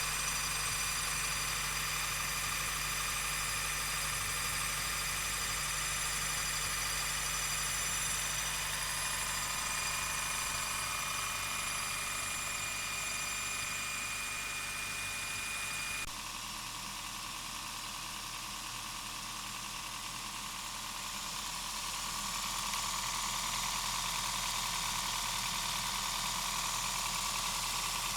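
Honda Fit Hybrid (GP6) engine room running after a cold start, with a steady whine of several high tones over the engine's low hum. The tones shift abruptly about halfway through. This abnormal noise appears only when the car is cold and goes away once warm, and the dealer traced it to the transmission, which is being replaced.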